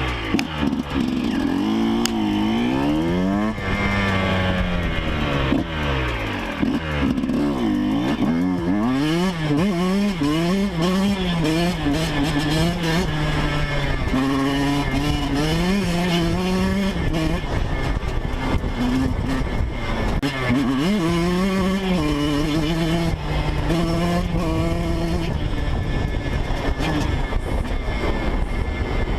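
2012 Yamaha YZ125's two-stroke single-cylinder engine under way, its pitch climbing and falling again and again as the bike accelerates and eases off.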